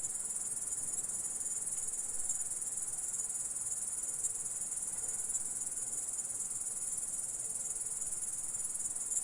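A steady, continuous high-pitched insect trill, unbroken and even in level.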